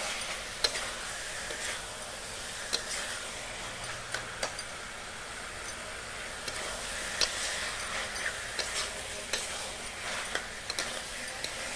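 Steel spatula stirring mushroom masala and raw potato sticks in a kadai, with irregular clicks and scrapes of the spatula against the pan over a steady low sizzle.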